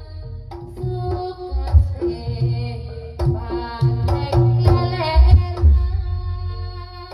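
Music with a singing voice, hand-drum beats and heavy bass played loud through a sound-horeg rig with a new 21-inch Paratel subwoofer box under test.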